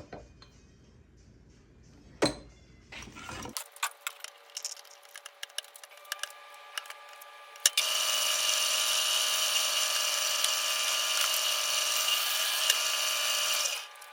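Light clicks and handling of tools and workpiece, then an electric power tool motor starts about halfway through. It runs steadily at a constant whine for about six seconds and cuts off near the end.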